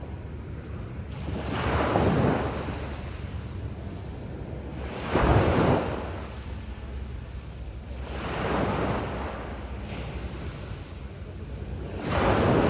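Sea waves breaking and washing up on a beach: four surges about three to four seconds apart, the second the loudest and most sudden, over a steady low rumble of wind on the microphone.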